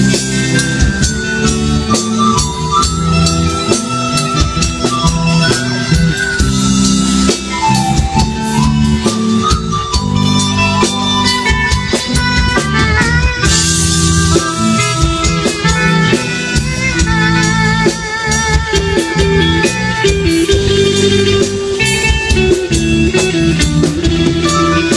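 Live band playing an instrumental break without vocals: a wavering melodic lead line over bass and a steady drum beat.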